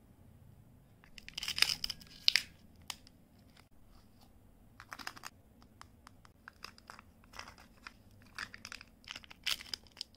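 Candy wrappers being torn open and crinkled by hand, in bursts of crackly rustling, the loudest about two seconds in and more near the end.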